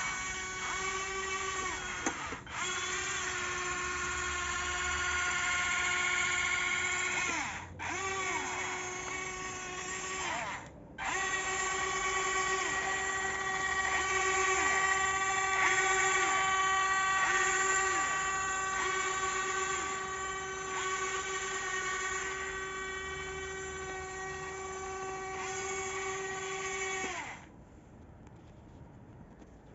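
Electric drive motor and gearbox of a radio-controlled tracked model truck whining steadily as it drives, the pitch bending slightly as the speed changes. It cuts out briefly three times, about two, eight and eleven seconds in, and stops near the end.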